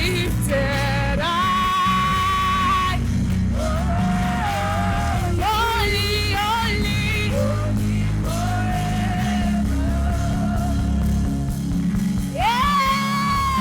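Live church worship music: a band plays a steady accompaniment while a lead singer holds long, gliding wordless notes in several phrases, the loudest near the end.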